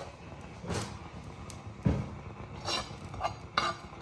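A kitchen utensil knocking and clinking against a hot tawa (flat griddle) while garlic cloves and ajwain seeds roast on it: about five separate knocks, the loudest about two seconds in.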